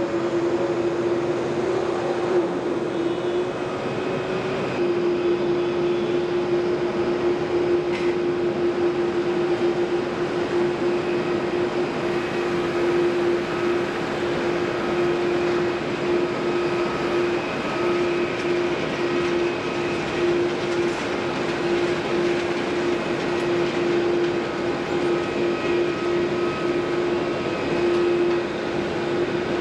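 Boeing 737-800's CFM56-7B turbofan engines running at idle as the airliner taxis after landing: a steady hum with fainter high whines over the engine noise.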